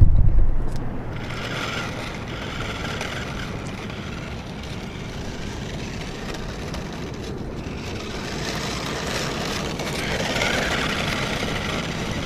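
A loud thump at the very start, then a steady rushing noise with no clear pitch that swells about eight seconds in and is loudest around ten seconds.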